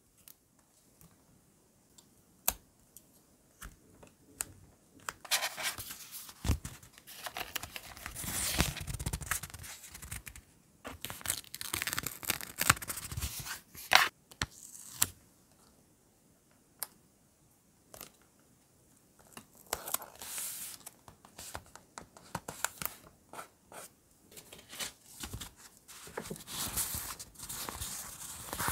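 Paper stickers being peeled off their backing sheets, a rasping tear-like sound in several stretches, with light taps and rustles as the stickers are pressed down with tweezers and the sticker sheets are handled.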